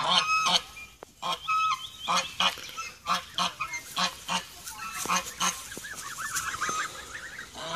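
White domestic geese honking, a quick run of short honks at about three a second.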